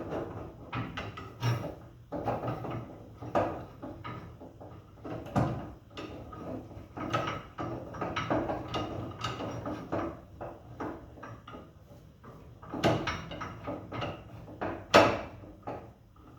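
Metal tools and steel suspension parts knocking and clattering irregularly during hand work, with a few louder clanks.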